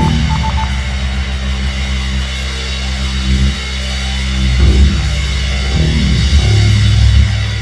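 Loud heavy rock music with sustained low notes that shift every second or so, beginning to fade near the end.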